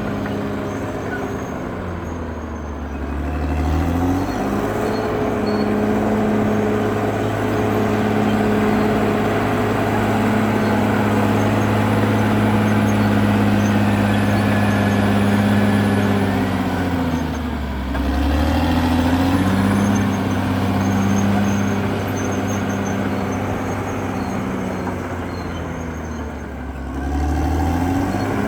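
CAT D6R XL bulldozer's diesel engine running hard under load. Its pitch sags and climbs back up three times, about two seconds in, near the middle and near the end.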